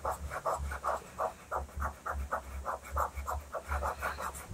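A colour shaper rubbing white pastel into pastel paper in quick, short back-and-forth strokes. The scrubbing comes in an even rhythm of about four to five strokes a second, each with a soft thud of pressure on the board.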